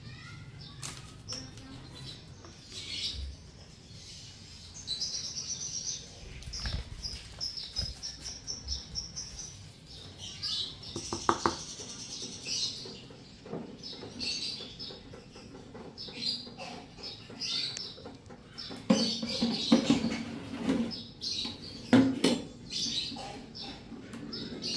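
Small birds chirping in the background, over scattered clicks and knocks of kitchen handling, with a denser run of knocks near the end as a countertop electric oven's door is opened.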